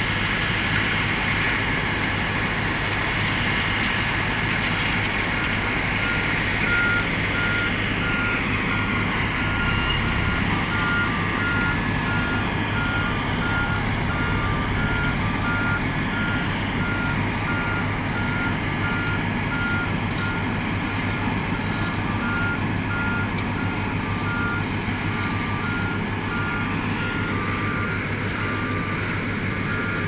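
Heavy road-paving machinery running steadily with a low diesel engine hum. About five seconds in, a backup alarm starts beeping over and over. A few seconds later a second, lower-pitched alarm joins it, beeping at a different rate.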